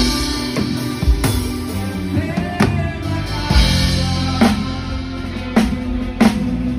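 Christian band music with a drum kit keeping a steady beat, about two hits a second, over sustained bass and chord tones.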